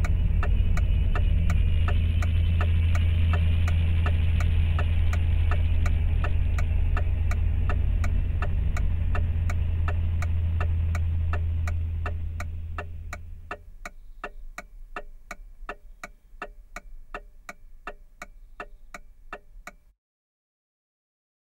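A car's turn-signal indicator ticking evenly, about three ticks a second, over the low steady hum of the engine idling. The engine hum fades out a little over halfway through and the ticking carries on alone, quieter, then stops.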